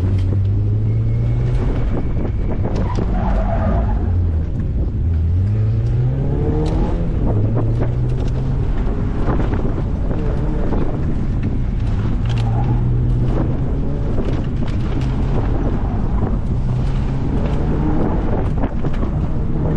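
Mazda MX-5's inline-four engine being driven hard, its pitch repeatedly climbing under acceleration and dropping off between bursts, heard from the open cabin with wind and road noise.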